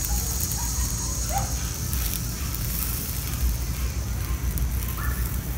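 Wood campfire burning under a grill grate with bacon and burgers in cooking baskets: a steady hiss with faint crackles over a low rumble, and a few short high chirps now and then.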